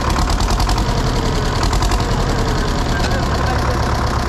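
Old agricultural tractor engine idling steadily, with an even, rapid firing beat.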